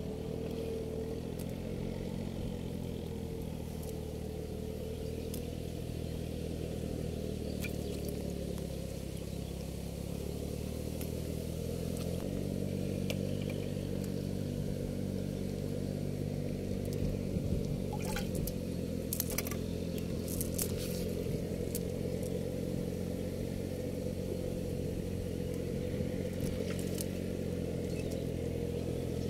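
An engine running steadily as a low hum, with a few faint clicks about two-thirds of the way in.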